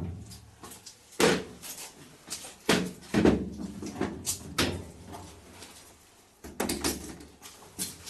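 Repeated sharp knocks and clatters from handling an opened washing machine's cabinet during a repair, about six loud hits spread over several seconds.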